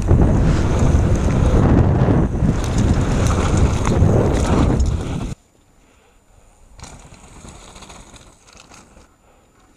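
Wind buffeting the camera microphone during a fast mountain-bike descent on a dirt trail: a loud, deep roar that cuts off suddenly about five seconds in. After that, a much quieter stretch with a few faint knocks.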